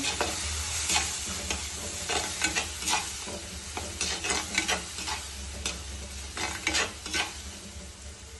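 Onion-tomato masala frying and sizzling in a clay pot while a spatula stirs it, with many quick knocks and scrapes of the spatula against the pot.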